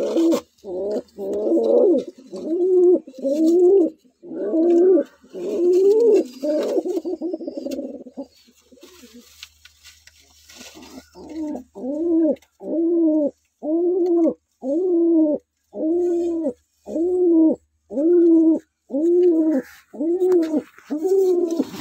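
Fantail pigeon cooing in a long series of repeated low coos, about three every two seconds. The coos pause for a few seconds near the middle, then start again in a very even rhythm.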